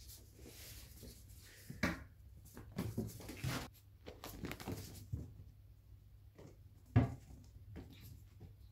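A kitten playing on a tiled floor: irregular scuffs, taps and knocks, with one sharp knock about seven seconds in.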